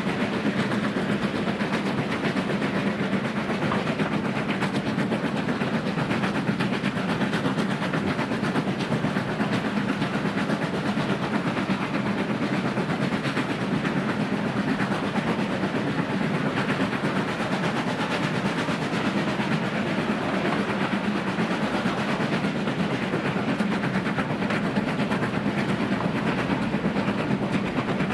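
Ivatt Class 2 2-6-2T steam tank locomotive working a train up a gradient, heard from its cab side: a steady, loud mix of exhaust and running gear with the wheels running on the rails.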